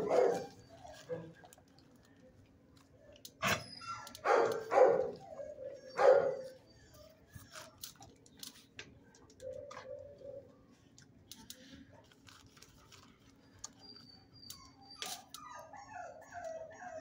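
A dog barking in a shelter kennel, with three loud barks between about four and six seconds in and a run of quick, faint yips near the end.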